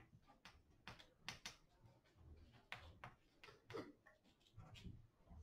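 Chalk tapping and scratching on a chalkboard as figures are written: a string of faint, irregular ticks.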